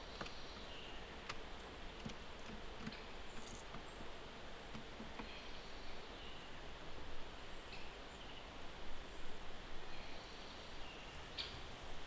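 Forest ambience: a steady hiss with a small bird calling faintly about three times, each call a short higher note stepping down to a lower one, and a few small clicks and taps.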